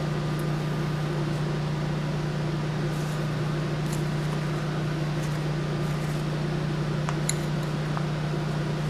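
Steady low machine hum of shop equipment, with a few faint ticks near the end.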